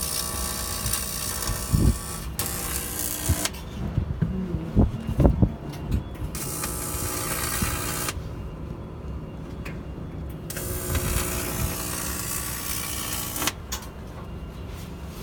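TIG welding arc on aluminium, a buzzing hiss that strikes and cuts off in several runs of one to three seconds, with a few low knocks in the middle.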